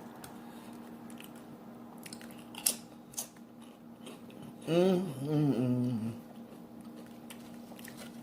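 A person eating a cheeseburger with chips close to the microphone: a couple of sharp crunching bites and chewing. About five seconds in comes a drawn-out, wavering "mmm" hum of enjoyment.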